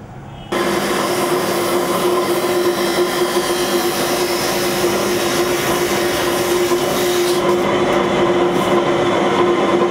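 Hose cut-off machine's spinning blade cutting through a wire-reinforced hydraulic hose. It starts abruptly about half a second in, a loud harsh grinding over a steady whine.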